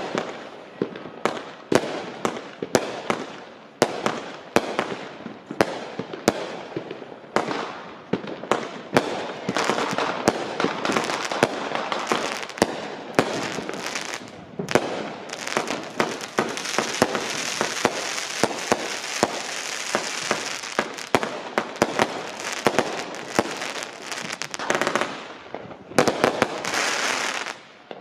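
Consumer fireworks cakes firing: a quick string of launch thuds and aerial bursts, about two a second. These thicken into a dense, hissing crackle of glitter stars through the second half, then stop abruptly near the end.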